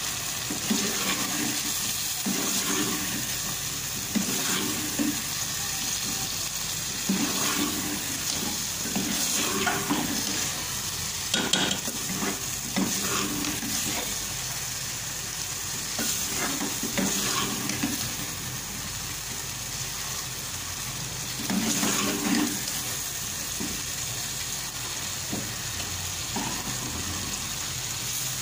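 Chickpea curry frying and sizzling in a metal pot while a metal ladle stirs through it, with irregular scrapes and knocks of the ladle against the pot. The chickpeas are being fried (bhuna) in their masala with green chillies.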